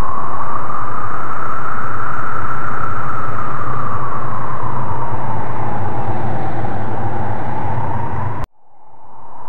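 Howling wind sound effect: a loud, steady rush with a whistling tone that slowly rises and falls over a low rumble. It cuts off abruptly about eight and a half seconds in and then fades back in.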